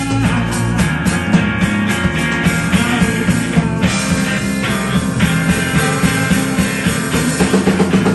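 Live band playing a song: strummed acoustic guitar, electric bass and drums, with steady percussion strokes.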